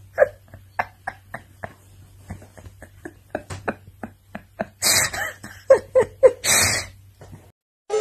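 An angry tabby cat making a string of short throaty grunts and cries, with two longer breathy hisses about five and six and a half seconds in, cutting off suddenly near the end.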